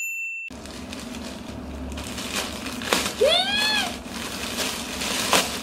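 Black plastic bag wrapping rustling and crinkling as a parcel is cut with scissors and pulled open, with a few sharper crackles. A short voice sound that rises and falls comes about three seconds in, and a brief high beep sounds at the very start.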